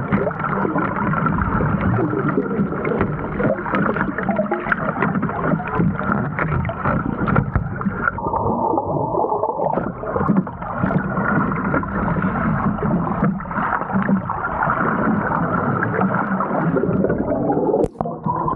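Water and air bubbles churning, heard through a camera submerged in a pool: a dense, muffled rushing and gurgling with constant small crackles, briefly duller about halfway through.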